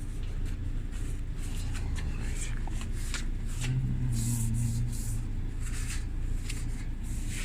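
Rag wiping and hand-handling noises inside an opened dryer cabinet: irregular short rustles and scrapes over a steady low hum.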